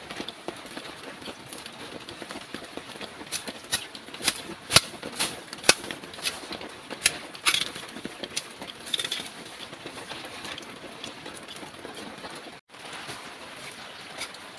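A long knife chopping through leafy plant stems: a dozen or so sharp cuts, irregularly spaced and clustered through the middle of the stretch, with leaves rustling, over a steady background hiss.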